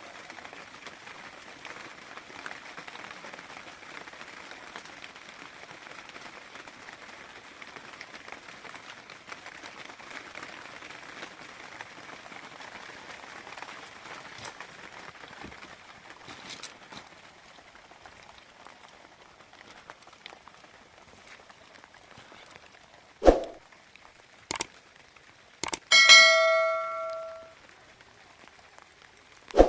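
Faint steady hiss, then three sharp clicks followed by a single bright bell chime with several ringing tones that fades over about a second and a half.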